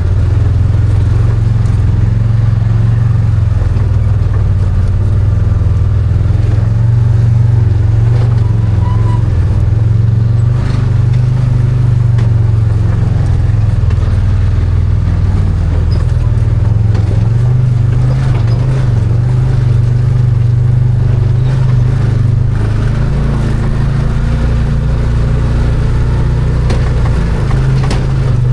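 Arctic Cat Wildcat 1000 4X side-by-side's V-twin engine running steadily under way, with its pitch rising and falling gently and a few brief knocks and rattles.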